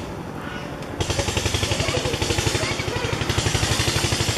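A small engine running nearby with a fast, even beat, getting louder about a second in.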